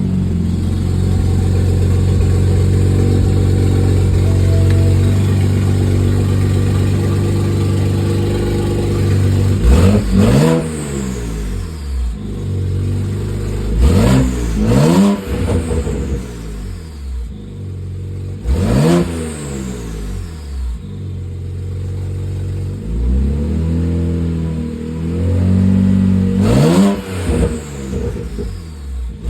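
BMW N54 twin-turbo inline-six running on catless downpipes with no exhaust connected behind them. It idles steadily at first, then is revved sharply about five times, each rev rising and falling back to idle. The downpipes aren't tight and the exhaust leaks.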